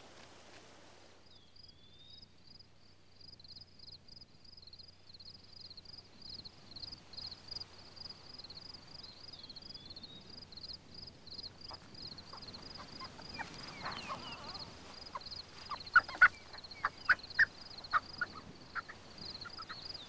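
A steady high insect trill of rapid pulses, joined past the midpoint by a series of short, sharp chirps, the loudest near the end. The chirps are the alarm calls of a Columbian ground squirrel standing sentry.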